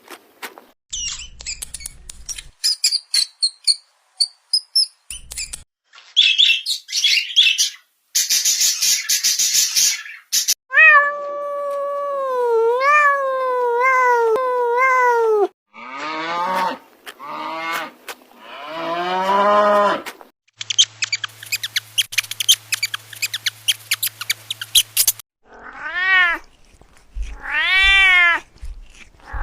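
A string of short animal-sound clips, mostly domestic cats meowing. About a third of the way in comes one long, wavering meow. Later come runs of short, arched meows, with hiss-like noisy stretches and a few high chirps in between.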